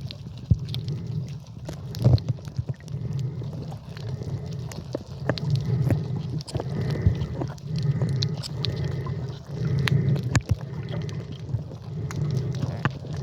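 Muffled water sloshing and gurgling around a snorkeler's camera, swelling and fading every second or two, with scattered sharp clicks.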